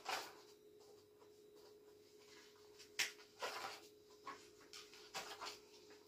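Pages of a comb-bound printed book being turned by hand: soft paper rustles, with a sharper flick and swish of a page about three seconds in and lighter rustles after it.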